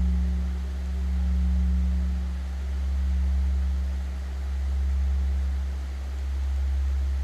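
Large Korean bronze temple bell (beomjong) ringing on after a strike: a deep hum that swells and fades about every second and a half to two seconds as it slowly dies away.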